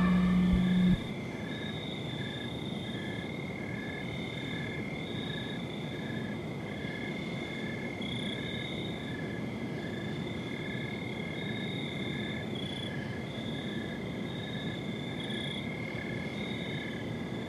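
Background music cuts off about a second in, leaving a steady outdoor night chorus of calling crickets or similar night insects: a short chirp repeating about once or twice a second over steady higher trilling.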